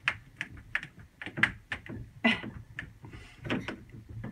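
Light, irregular clicks and taps of small parts being handled and fitted, several a second.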